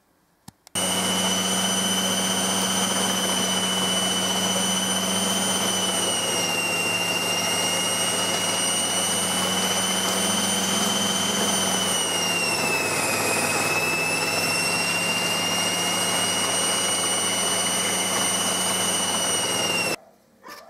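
Electric food processor motor running as it shreds cabbage, a steady high whine over a low hum. It starts about a second in, its pitch sags briefly twice as cabbage is pushed through, and it stops shortly before the end.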